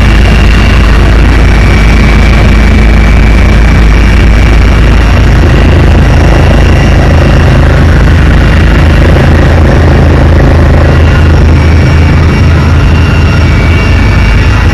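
Helicopter engine and rotor noise heard from inside the cabin: a loud, steady drone with faint steady high whines above it.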